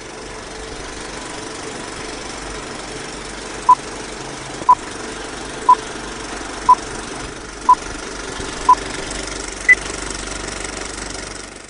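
Countdown beeps over a steady mechanical running noise: six short beeps at one pitch, one a second, then a seventh, higher beep.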